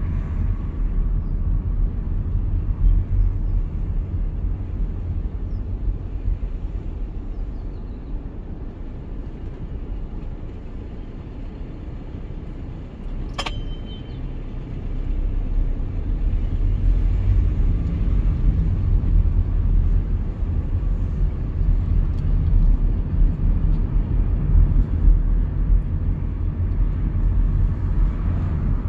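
Steady low rumble of a car's engine and tyres on the road, heard from inside the car. It dips for a few seconds near the middle and builds again just after halfway. There is a single sharp click at about the midpoint.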